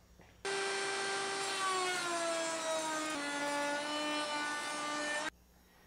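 Table-mounted router with a tongue-and-groove bit cutting a lengthwise groove in a wooden rail: a high motor whine that sags in pitch in steps as the bit cuts. It starts abruptly about half a second in and cuts off abruptly about a second before the end.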